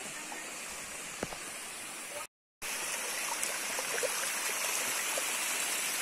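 Shallow forest stream running over rocks and small cascades, a steady rush of water. It cuts out completely for a moment a little over two seconds in, then comes back a bit louder.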